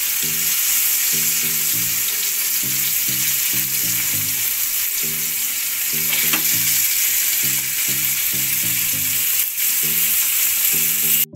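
Paneer cubes shallow-frying in desi ghee in a frying pan, a steady loud sizzle, while metal tongs turn the cubes over with a couple of light taps against the pan. The sound cuts off abruptly at the very end.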